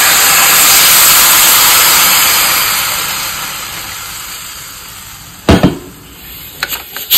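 Water poured steadily from a jug into an aluminium pressure-cooker pot of meat and potatoes, a hissing splash that tapers off over the first few seconds. About five and a half seconds in comes a single sharp knock, followed by a couple of light clicks.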